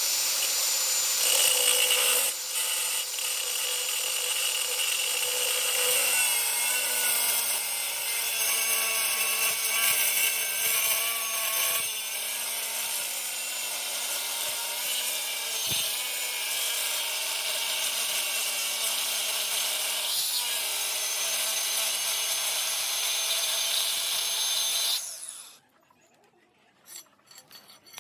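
Handheld electric power tool grinding and cutting into steel flat bar: a steady motor pitch under a harsh, high grinding hiss that runs on and stops about 25 seconds in.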